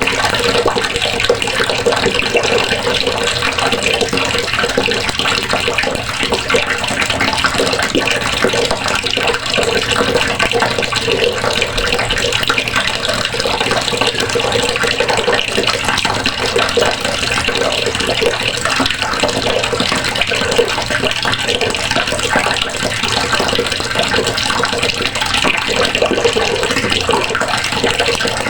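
Water running steadily from a faucet and splashing into a basin below.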